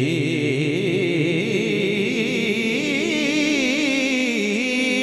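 A male naat reciter singing a long, wavering melismatic run into a microphone, his voice settling on a steady held note near the end.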